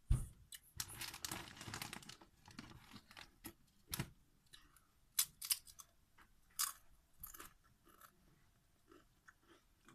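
Close-miked crunching and chewing of Doritos tortilla chips: a dense run of crunches in the first two seconds, then sparser single crisp crunches.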